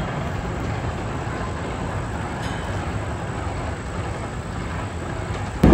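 Steel roller coaster train running on its track: a steady rumble, then a sudden much louder rumble right at the end as a train comes through close by.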